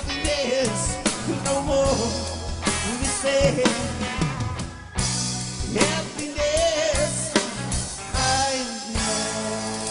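Live rock band playing, with a drum kit, guitars and a wavering lead melody. About nine seconds in, the drum hits thin out and a held chord rings on, slowly fading.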